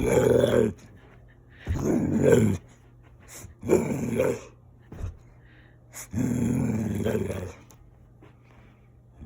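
Dalmatian making playful growly grumbles, the "gremlin sounds" of play: four drawn-out bursts, the last and longest about six seconds in.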